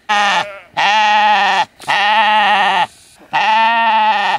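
Sheep bleating: four long, quavering bleats one after another, with short pauses between them.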